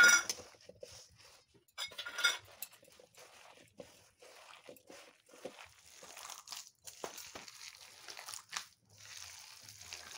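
A hand squeezing and mixing wet chopped vegetables with flour in a metal kadai, making irregular squishing and rustling. There are sharp metallic clinks at the very start and about two seconds in.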